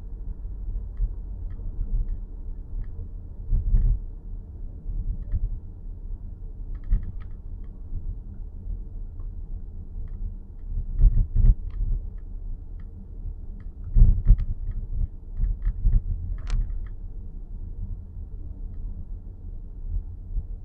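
Dashboard of a 2023 Nissan X-Trail e-POWER making an abnormal noise: irregular small clicks and ticks, some in quick clusters, over a steady low rumble inside the cabin.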